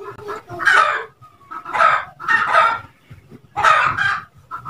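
Chickens clucking: several short calls in a row, with brief gaps between them.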